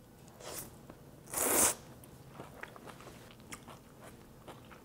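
Mouth sounds of eating glass noodles made from sweet potato starch: a short slurp, then a louder, longer slurp about a second and a half in as the noodles are sucked up, followed by faint chewing clicks.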